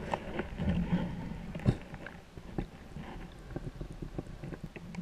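Muffled underwater sound heard through an action camera's waterproof housing: a low rumble with scattered small clicks and knocks, one sharper knock about one and a half seconds in.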